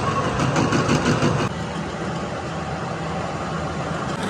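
Steady running machinery, like a heavy engine idling, with a fast regular rattle that stops abruptly about a second and a half in. The sound then continues steadily.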